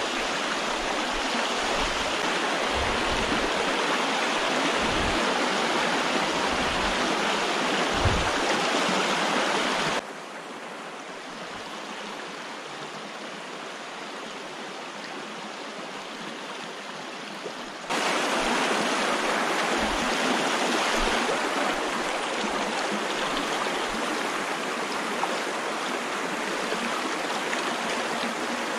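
Small rocky creek rushing and splashing over stones in shallow riffles, a steady hiss of running water. It turns abruptly quieter about ten seconds in and comes back to full strength about eight seconds later. A few dull low bumps sound in the first part.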